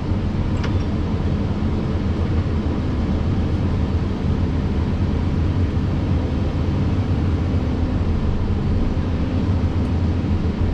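Cat next-generation excavator's diesel engine and hydraulics running steadily under load, heard from inside the cab, while the boom and stick cycle automatically through a calibration pass.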